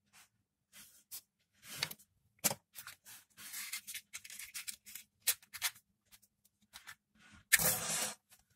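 Scattered small clicks and rustles of fingers handling a thin earphone wire, then near the end a match struck and flaring up in one short, loud hissing burst, the loudest sound.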